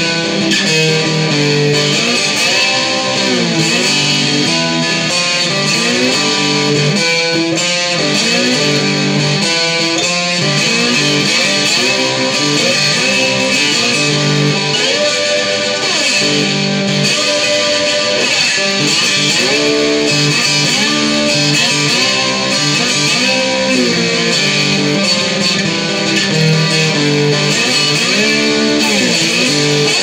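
Handmade four-string cigar box guitar, plugged in, played as a riff of picked and strummed notes that slide up and down in pitch.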